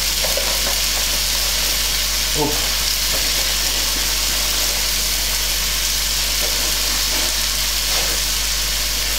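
Tomato-and-carrot marinade, thinned with water, boiling hard and sizzling in a frying pan on a gas burner: a steady, loud hiss.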